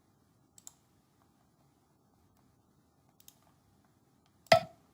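Computer mouse clicks at a desk: faint paired clicks of a button being pressed and released, and one much louder, sharp click near the end.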